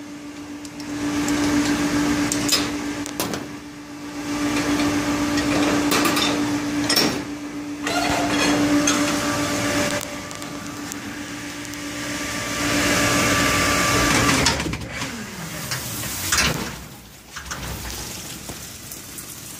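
Dishwasher running: a steady motor hum with water washing inside and a few knocks and clatters. The hum stops about fourteen seconds in.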